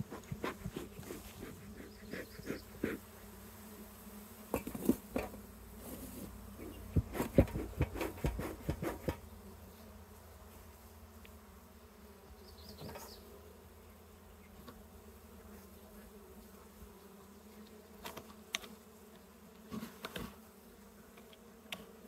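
Honey bees buzzing steadily around an opened hive, a colony agitated by the disturbance and heavy smoking. Scattered knocks and handling noises come through, clustered in the first few seconds and around seven to nine seconds in.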